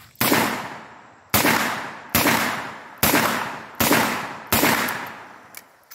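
Six .357 Magnum shots from a Smith & Wesson Model 66 Combat Magnum revolver fired double action, a little under a second apart, each with a short echoing tail.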